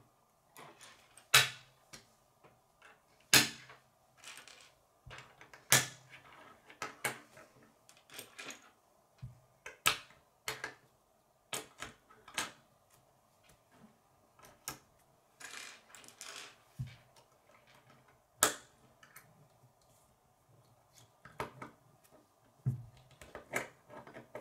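Irregular plastic clicks and taps of K'nex connectors and rods being fitted together and knocked against a wooden table, with a few sharper snaps standing out.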